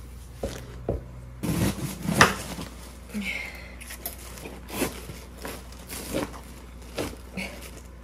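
A string of short crisp snaps and rustles: leaves of a whole napa cabbage being handled and broken off the head, with newspaper crinkling underfoot at first.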